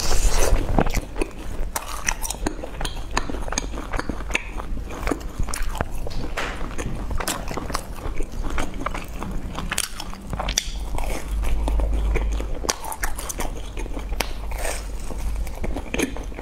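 Close-miked mouth sounds of someone eating dessert: biting and chewing with many small, irregular clicks and wet smacks.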